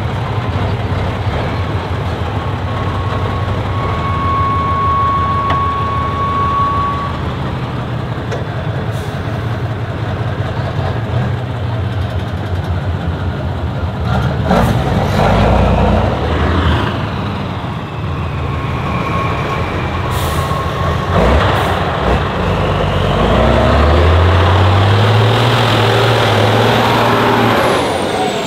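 Heavy 6x6 trial truck's diesel engine working hard in sand, revs swelling and falling, then climbing again about two-thirds of the way through. A few short, sharp air-brake hisses cut in.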